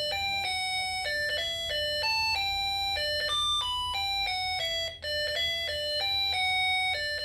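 Snap Circuits music IC playing an electronic beeping melody through the small snap-on speaker, clear buzzy notes stepping up and down at about three or four a second, with a brief gap about five seconds in. The tune sounds because the slide switch has just been closed, powering the sound-activated circuit.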